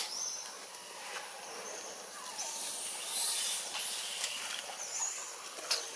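Outdoor natural ambience: a steady high-pitched hiss with a few short high chirps scattered through, and a single sharp click near the end.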